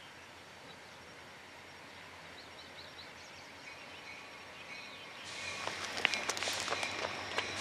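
Faint outdoor ambience with a few short bird chirps, then about five seconds in the louder rolling hiss of an approaching diesel freight train, with scattered sharp clicks.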